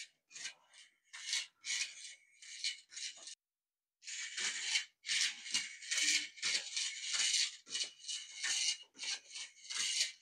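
Small solar-kit beetle robot walking on a wooden floor: its little gear motor and plastic crank legs rasp and scrape in quick repeated bursts. The sound breaks off briefly about three and a half seconds in.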